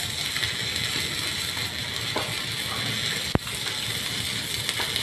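Arc welding with a Yamato 300-ampere welding machine under test: a steady, crackling hiss, with one sharp click about three seconds in.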